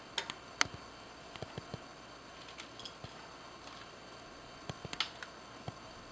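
Scattered sharp clicks and ticks, several close together near the start and another cluster about five seconds in, over a faint steady hiss.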